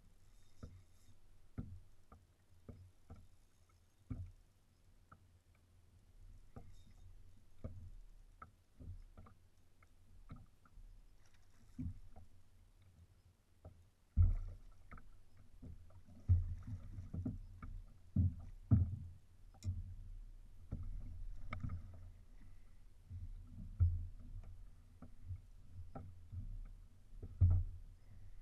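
Water slapping against a fishing kayak's hull in irregular low knocks, heavier and more frequent from about halfway through.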